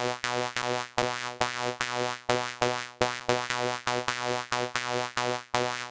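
Vanguard software-synthesizer lead playing one repeated note about three times a second. Each note is strongest at its start and dies away. The lead is a filtered, unison-thickened synth voice.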